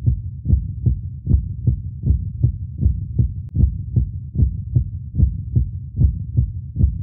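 Muffled, deep, thudding beat in the soundtrack, about two and a half even pulses a second, with almost nothing above the bass.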